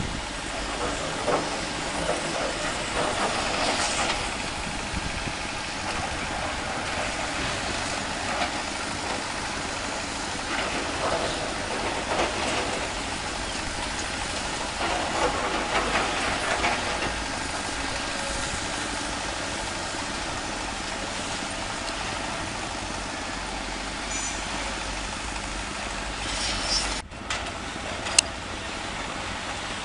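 Heavy diesel machinery running: excavators and dump trucks working in a rock quarry, with scattered rattles and knocks of rock and steel.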